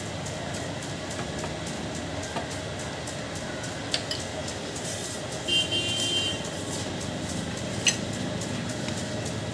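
Small metal clicks as the fuel tap is worked loose from under a motorcycle's tank: two sharp clicks, about four seconds apart, over steady street background noise. A short high beep near the middle.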